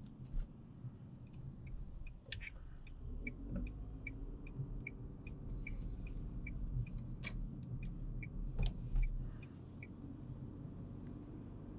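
Car turn-signal indicator ticking at a steady pace, about two and a half ticks a second, over the low engine and road rumble inside the Dacia Sandero Stepway's cabin. The ticking starts a little over a second in and stops near the end.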